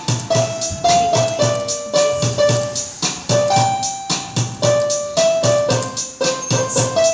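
Portable electronic keyboard played one note at a time, a simple stepping melody over a steady beat.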